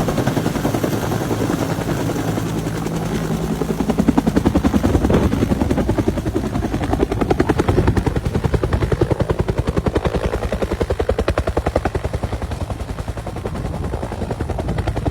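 Firefighting helicopter flying overhead, its rotor blades chopping in a fast, even rhythm that swells and fades a few times as it moves.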